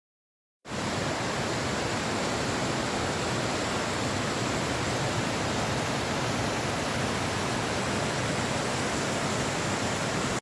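Steady, even rush of water from a small underground waterfall in a limestone cave, starting abruptly under a second in after dead silence.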